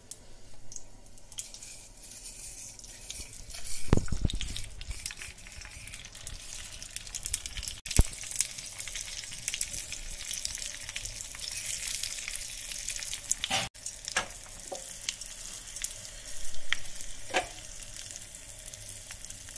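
Ghee tadka sizzling in a small tadka pan on a gas burner: black mustard seeds crackling and curry leaves spluttering in hot ghee, a steady hiss with fine pops. A dull thump about four seconds in and a sharp click about eight seconds in stand out above the frying, with a few lighter knocks later.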